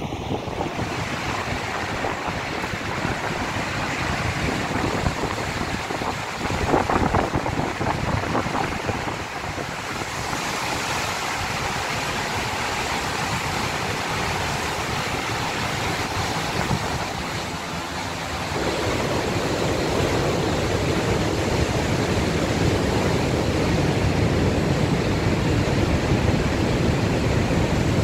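Steady rushing noise of Niagara's Horseshoe Falls pouring into its plunge basin, with wind buffeting the microphone. A louder gust comes about seven seconds in, and the whole sound steps up louder about two-thirds of the way through.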